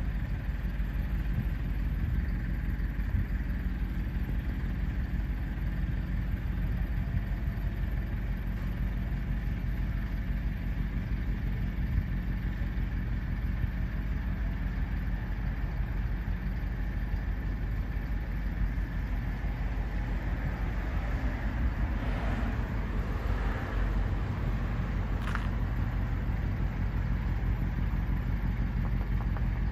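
Steady low rumble of distant engines, with a faint hiss above it and one sharp click about 25 seconds in.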